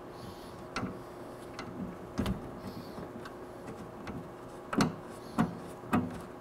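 Bolts, washers and the metal luggage rack being handled as bolts are started by hand into the top case: a handful of irregular small clicks and taps.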